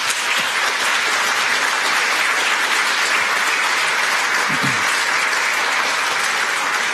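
Audience applauding steadily in a lecture hall.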